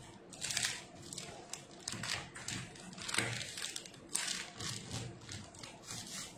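Rustling and crinkling of handled packaging, in a series of short irregular bursts, some with a light knock.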